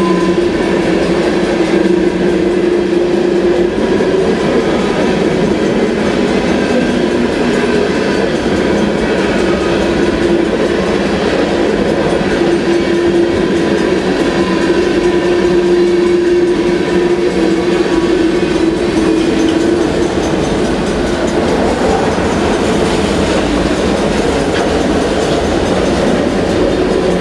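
Freight cars of a long train, tank cars and autoracks, rolling past close by. Their steel wheels make a steady loud rumble and rattle on the rails, with a steady hum running through it.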